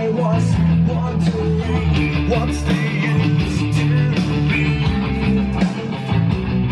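Rock song with strummed guitars played loudly through a JBL PartyBox 100 Bluetooth party speaker.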